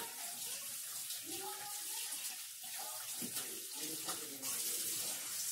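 Kitchen sink tap running steadily, the water splashing as hands are washed under it.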